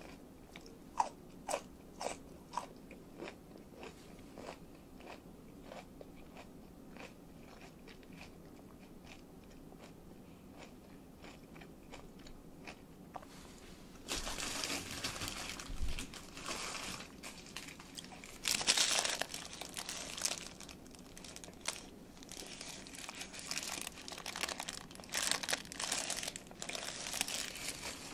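Close-miked chewing of a miso katsu sandwich (breaded, fried pork cutlet in a bun), with sharp separate crunches through the first half. From about halfway the sounds get louder and denser, with the paper wrapper rustling as the sandwich is handled and picked up.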